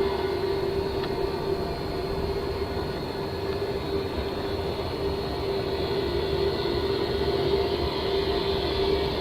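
A steady, unbroken drone: one held tone over a low rumble, unchanging throughout, with no clear direction to it. It is one of the unexplained 'strange sounds' heard from outdoors at night, of unknown origin.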